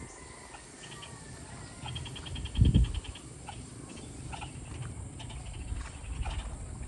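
Outdoor field ambience: a low rumbling noise with one louder low burst about two and a half seconds in, a rapid high chirping trill for about a second, and scattered short chirps.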